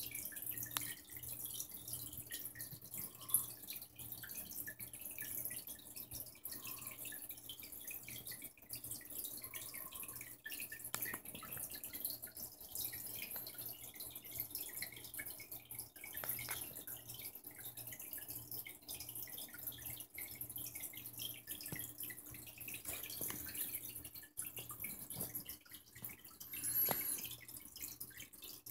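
Aquarium water trickling and dripping steadily, over a faint low hum.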